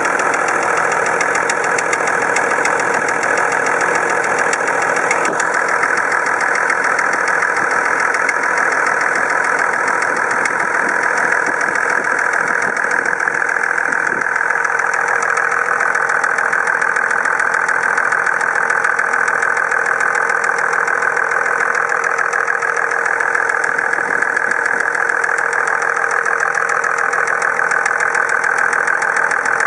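Toyota Land Cruiser HDJ80's 4.2-litre straight-six turbodiesel running steadily, with a fast, even rattle from inside the engine. The cause of the rattle is unknown to the owner.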